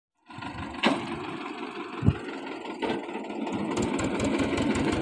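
Eicher tractor's diesel engine running with an even low pulsing beat as it pulls a spring-tine cultivator, growing louder toward the end. Two sharp knocks, about a second in and about two seconds in.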